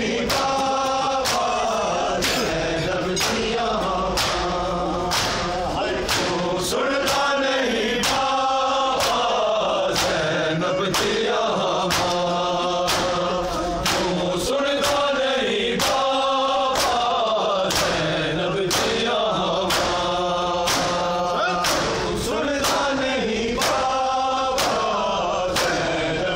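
Men's voices chanting a noha together in phrases, kept in time by a steady beat of open-palm chest blows (matam), somewhat more than one a second.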